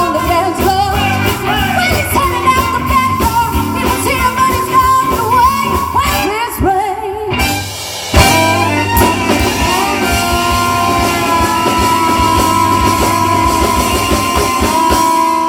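Live modern swing/soul/rock band with a female singer, trumpet, saxophone, electric guitar and drum kit. The singing runs through the first half, the band breaks off briefly about halfway, comes back in with a sharp hit and then holds one long sustained note together.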